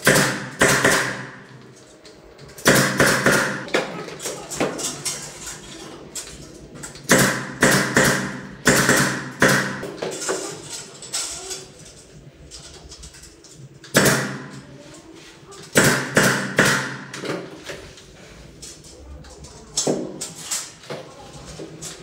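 Pneumatic nail gun firing nails into a ceiling, in short runs of quick, sharp shots, about seven times over.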